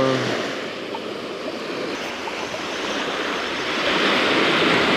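Surf breaking and washing up a sandy beach, an even rushing noise that swells louder about three to four seconds in.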